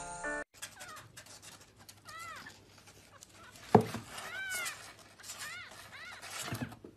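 A kitten mewing: several short, high mews, each rising and then falling in pitch, with one sharp knock about halfway through.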